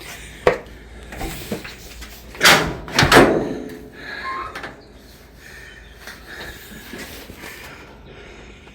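Steel cab door of a 1954–55 Chevrolet 3100 pickup being opened: a latch click, then two loud metal clunks about two and a half and three seconds in.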